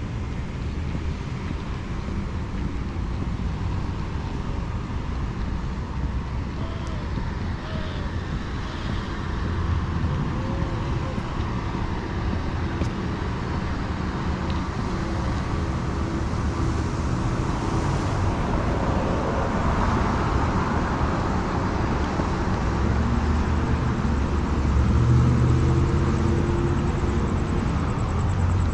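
City street traffic: a steady low rumble of engines with cars passing, one louder pass building a little past halfway and a heavier engine sound near the end.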